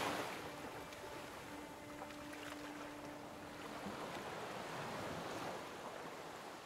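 Gentle sea waves washing on open water, a soft steady noise that slowly fades. Faint held tones sound under it for the first four seconds, then die away.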